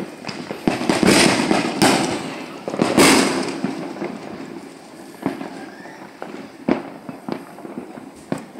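Fireworks going off: three loud bangs about one, two and three seconds in, each with a trailing echo, followed by a run of short, sharp, scattered pops.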